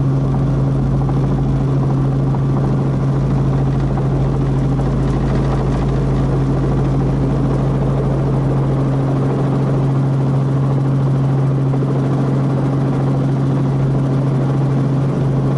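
Small piston-engine helicopter's engine and rotor heard from inside the cockpit while it hover-taxis: a steady drone with a strong low hum that holds unchanged throughout.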